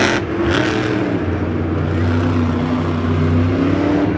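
Megalodon monster truck's supercharged V8 engine revving hard, its pitch dipping and swelling and then climbing near the end as the truck is thrown up on two wheels.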